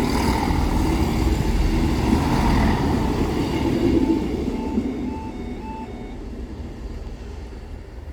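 A train rumbling over the level crossing and fading away as it goes. The crossing's warning alarm sounds as short beeps about twice a second, still going after the train has cleared.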